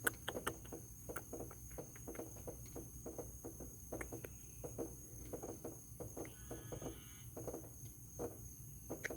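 Faint steady chirring of insects in the background, with a scatter of small irregular clicks and crackles throughout.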